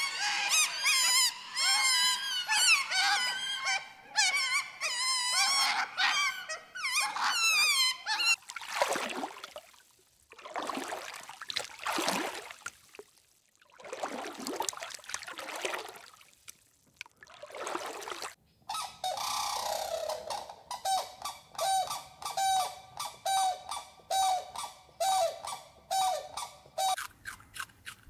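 Otters chirping and squeaking in rapid, wavering high-pitched calls for about the first eight seconds. Then come several breathy rushing noises, and from about two-thirds of the way in a fast, even run of short repeated calls, about two a second.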